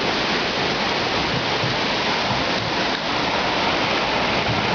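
Steady rush of falling water splashing into a pool, an even unbroken noise.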